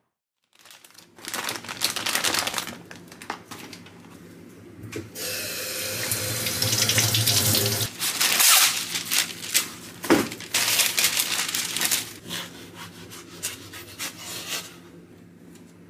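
Kitchen tap running in a steady hiss as a dragon fruit is rinsed, about midway, with the rustle and crinkle of parchment paper being handled and laid out before and after it.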